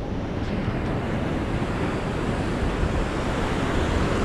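Ocean surf breaking, a steady rush of waves mixed with wind buffeting the microphone.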